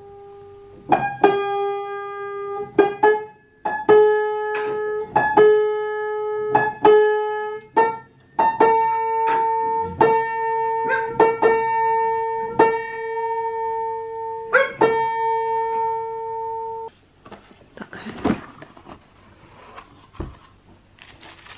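Upright piano being tuned: one key struck again and again, each note ringing on, the pitch stepping up a couple of times as the tuner sets the string. The strikes stop about three-quarters of the way through, leaving faint handling noises and a knock.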